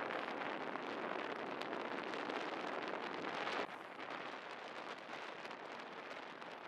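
Steady rushing wind and road noise picked up by a camera moving along with the riders, with a few faint crackles. It drops in level at a cut a little past halfway.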